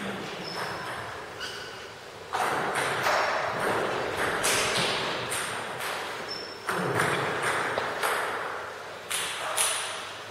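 Celluloid or plastic table tennis balls clicking off bats and the table, in irregular sharp ticks about a second apart, each ringing on in the echo of a large hall.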